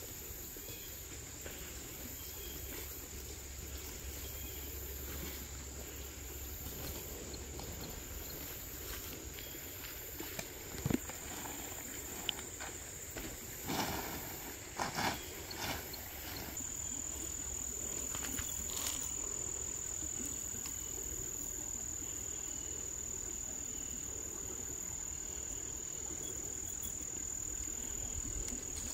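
A steady, high-pitched insect chorus, like crickets trilling, that grows louder about halfway through. Near the middle come a few short knocks and rustles, as the tent fabric and poles are handled.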